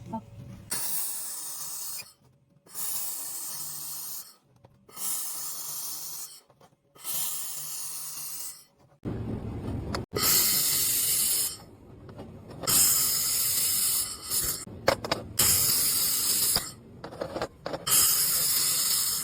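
Handheld laser welding gun firing in eight separate bursts of a second and a half to two seconds, each a high hiss of shielding gas and laser at the nozzle, stopping and starting with short pauses between. About nine seconds in, a louder low background noise comes up under the bursts.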